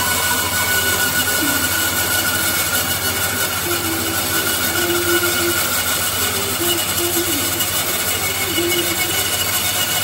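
Bandsaw running with its blade cutting into a solid agarwood log: a loud, steady whir with a high whine over it.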